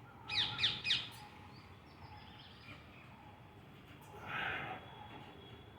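A bird calling: three quick falling chirps in the first second. About four seconds in comes a short, breathy rush of noise.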